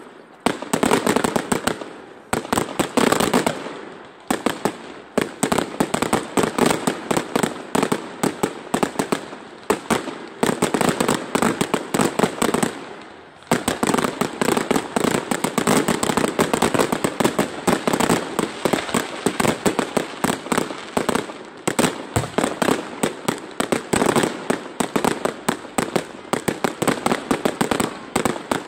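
Aerial fireworks bursting in a dense, rapid barrage of bangs and crackles, with brief lulls about four and thirteen seconds in.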